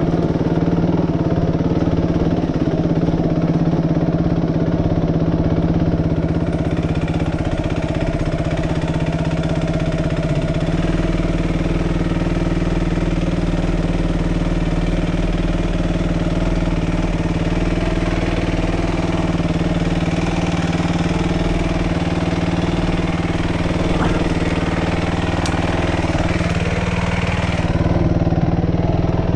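Suzuki RM-X450Z dirt bike's single-cylinder four-stroke engine running steadily, its pitch barely changing, as the bike is ridden slowly over rough trail.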